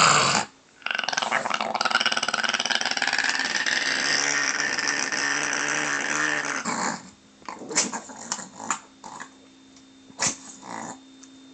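Chihuahua growling with a crackling rattle. A brief burst and a short pause come first, then one long growl of about six seconds that stops sharply, followed by a few faint scattered clicks.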